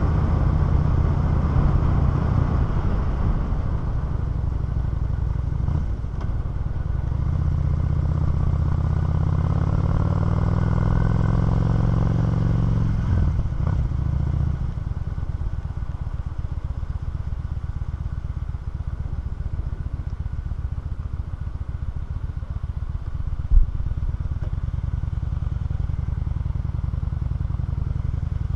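Honda 650 motorcycle engine running under way, heard from the bike itself. Its note climbs for several seconds as it accelerates, then drops off about halfway through and settles to a lower, steady note. A single sharp click comes about three-quarters of the way in.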